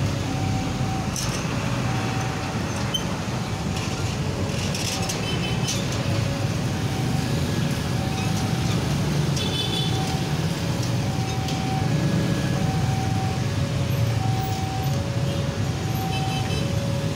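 Railway level-crossing warning alarm sounding, two notes alternating high and low about once a second each, over steady road traffic of motorcycles and trucks.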